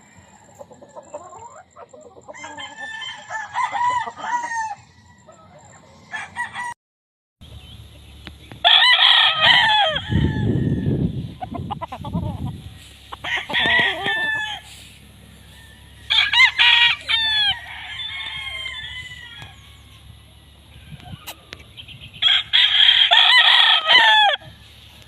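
Gamecock roosters crowing one after another, about five crows across the stretch, with a brief low rumble about ten seconds in.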